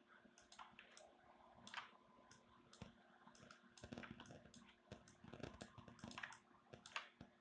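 Near silence: faint, scattered computer mouse clicks over a low steady hum.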